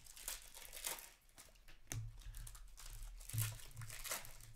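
2022-23 Upper Deck Series 1 hockey trading cards being slid and flipped through by hand: a run of quick, papery swishes and rustles as each card is moved off the stack.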